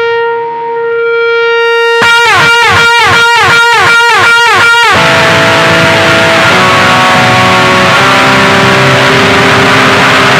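Electric guitar effect sounds through a BOSS BF-3 flanger and a Vox Time Machine delay pedal. A held note gives way, about two seconds in, to a falling swoop that repeats about three times a second. Near the five-second mark this turns into a dense, noisy wash with scattered held tones.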